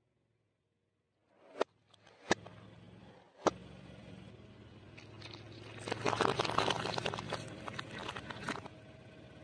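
Objects being crushed under a car tyre: three sharp pops within about two seconds, then a few seconds of dense crackling and crunching.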